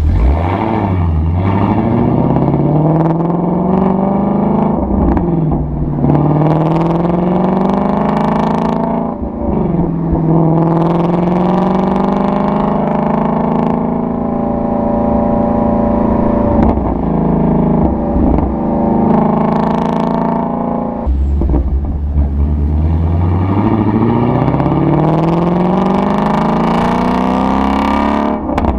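Ford Shelby GT350's 5.2-litre flat-plane-crank V8 accelerating again and again, its exhaust note climbing in pitch and then falling back or levelling off between pulls, with a stretch of steady running in the middle and a long climb near the end.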